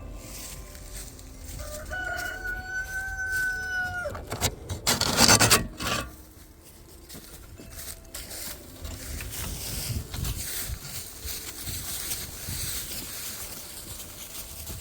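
Rooster crowing once, a single long call held steady for about two seconds that drops at the end. Right after it comes a loud, brief scraping noise, then quieter rustling.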